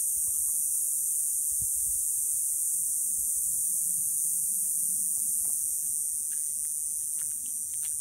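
Cicadas singing in trees: a loud, steady, high-pitched buzz that holds without a break, easing slightly near the end.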